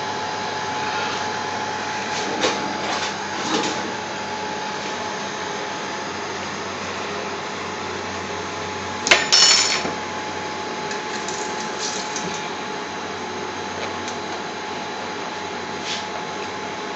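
Kitchen cooker-hood extractor fan running with a steady whirring hum. A few light knocks, and a brief clatter about nine seconds in.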